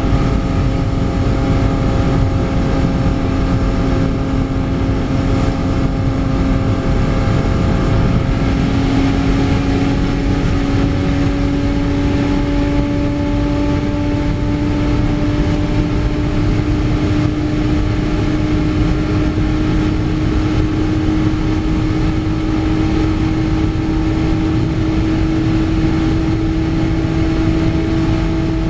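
TH-Automobile-tuned VW Bus at full throttle at very high speed, heard from inside the cabin. The engine note rises slowly and steadily as the van pulls from about 240 to 290 km/h, over heavy wind and road roar.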